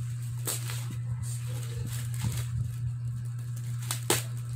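Plastic and bubble-wrap packaging being pulled and torn open by hand, giving a few short sharp crackles, the loudest near the end, over a steady low hum.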